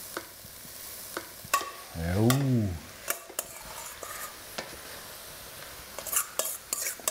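Chunks of mustard-coated wild boar sizzling in a hot stainless steel pot, stirred with a wooden spatula that knocks and scrapes against the pot with scattered clicks. About two seconds in, a short hummed voice sound rises and falls in pitch.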